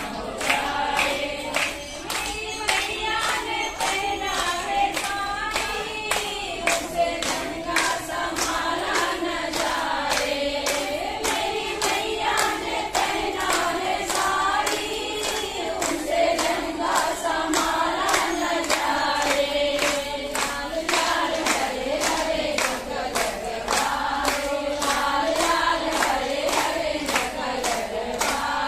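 A group of women singing a devotional puja song together, with steady rhythmic hand-clapping at about two claps a second.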